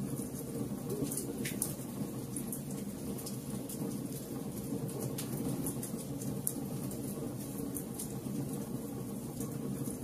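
Wood fire burning in a fireplace: a steady low rush from the flames with irregular sharp crackles and pops from the burning logs.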